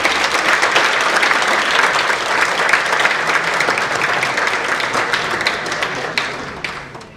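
Audience applauding, a dense crowd of clapping that fades out near the end.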